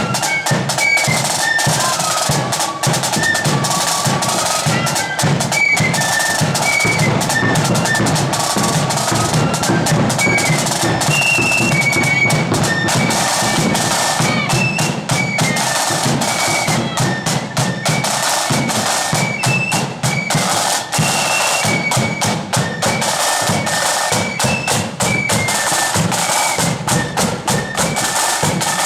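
Blood-and-thunder flute band playing a march: a high flute melody over rapid side-drum strokes and a bass drum beat.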